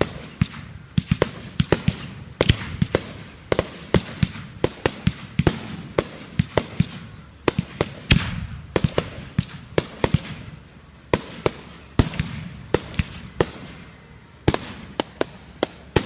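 Fireworks going off: a fast, irregular string of sharp bangs and cracks, several a second, over a low rumble and crackle.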